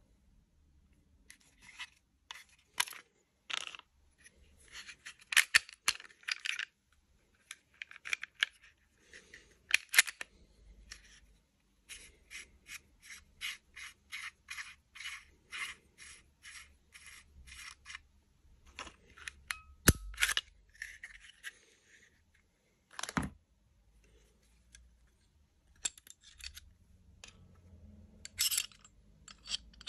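HS H11 RDR (Springfield Hellcat RDR) 9 mm polymer-frame pistol being handled and field-stripped: irregular clicks, rubs and scrapes of its steel and polymer parts. In the middle comes a run of about three light clicks a second for several seconds. Two sharper knocks follow, as the slide is worked off the frame.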